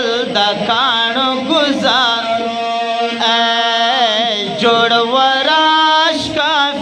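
Men's voices singing a Pashto naat into microphones: a long, wavering, ornamented melodic line over a steady low held note.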